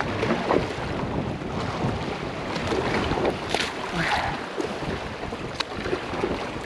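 Wind buffeting the microphone over sea water lapping against rocks, with a small splash about three and a half seconds in as a released wrasse drops back into the water.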